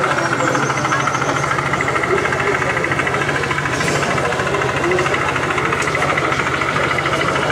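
Model train running, a steady engine-like sound with a fast, even rhythm.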